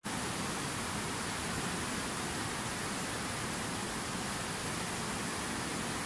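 Fast mountain river rushing over boulders: a steady, even white-water rush that cuts in abruptly at the start.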